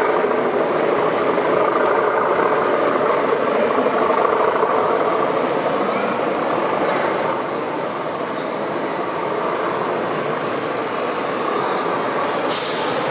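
O gauge model train, a pair of Class 37 diesel locomotive models hauling a rake of steel wagons, running past with a steady noise of wheels on the track. A brief hiss near the end.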